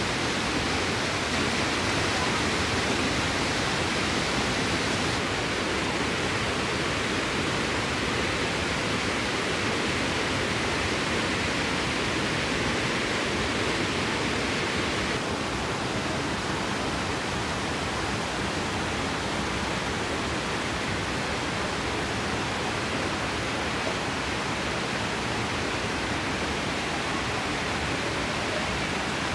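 Stream water rushing and cascading over large boulders at a waterfall: a steady, even rush that softens slightly about halfway through.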